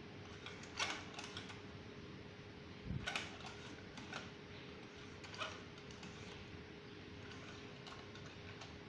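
A handful of faint clicks and creaks from a screwdriver turning the top-alignment screw of a GeneXpert PCR module, loosening it to release a jammed cartridge, over a steady faint hum.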